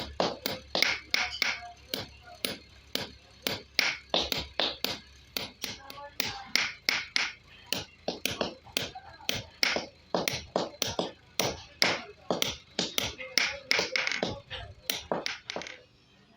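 Hammer striking steel in a steady, rapid rhythm of about three sharp blows a second, typical of blacksmith work on a file blank; the blows stop just before the end.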